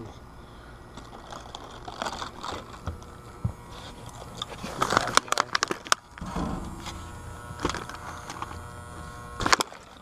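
Handling noise from an outdoor AC condenser unit: scattered clicks and knocks as its fan-grille top is moved to get at the compressor, with a cluster of sharp clicks about five to six seconds in and another knock near the end, over a faint steady hum.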